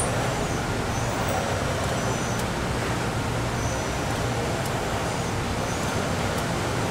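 CNC machining centre power-tapping holes in steel with a spiral-flute HSS-E tap under coolant: a steady rushing machine noise with a low hum, and a faint high whine that rises, holds and drops away several times.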